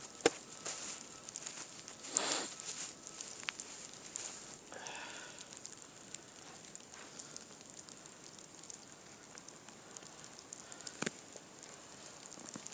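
Small wood fire crackling, with scattered ticks and a few sharper pops.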